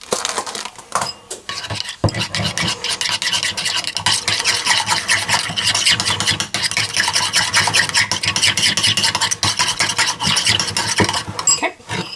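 Metal spoon stirring a thick sauce in a ceramic bowl: a few light taps, then from about two seconds in a rapid, steady scraping of the spoon against the bowl that stops just before the end.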